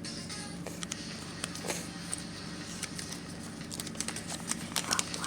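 Crinkling and small clicks from handling a homemade paper blind bag, thickest about four to five seconds in, over a steady low hum.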